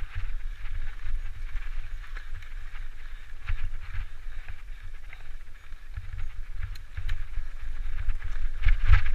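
Mountain bike riding along a dirt forest singletrack: wind buffeting the mounted camera's microphone as a deep rumble, with the tyres rolling on dirt and many small clicks and rattles. It gets louder near the end as the ride speeds up.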